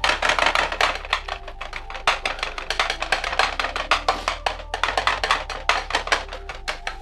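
Metal slotted spatula chopping kothu roti in a frying pan, a fast clatter of about eight to ten strikes a second as the edge hits the pan bottom through the chopped dosai mix, with a few short breaks.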